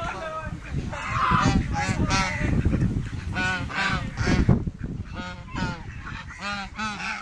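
A flock of domestic waterfowl calling over one another, with many short nasal honking calls in quick, overlapping runs.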